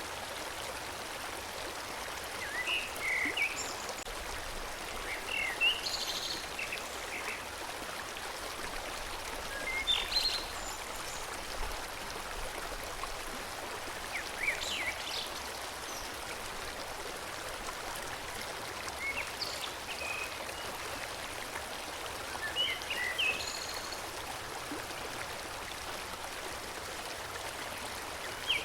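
Forest stream flowing steadily, a constant rush of water, with songbirds giving short high chirps every few seconds.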